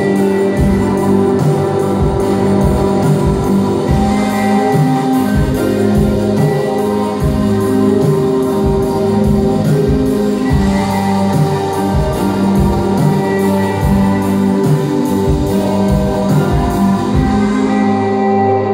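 Live band playing electric guitars, keyboard and drums, with sustained guitar and keyboard notes over a steady drum beat.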